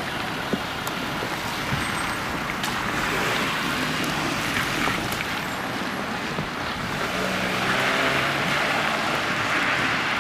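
Steady vehicle noise at a level crossing, with a few sharp clicks. It swells about eight seconds in, where a short run of low stepped tones sounds.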